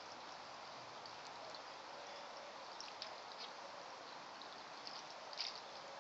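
Faint steady rush like running water, with a few light clicks about halfway through and a small cluster near the end.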